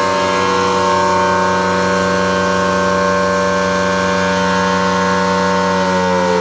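Federal Signal Thunderbolt 1000T tornado siren sounding a loud, steady tone made of several held pitches over a mechanical hum. Near the end the pitch starts to fall as the siren begins to wind down.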